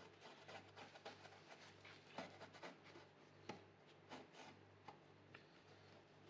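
Screwdriver scraping and picking at rusted sheet steel and flaking debris on a Volkswagen Transporter T4's rotten inner wing and wheel arch: faint, irregular scratches and ticks.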